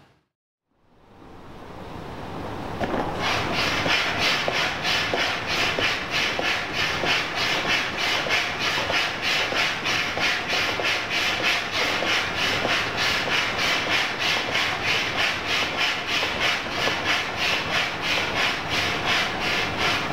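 Hand-operated floor air pump being worked in quick, steady strokes to inflate a large clear plastic bag: a rhythmic hiss of air, about three pulses a second, fading in and settling into its rhythm about three seconds in.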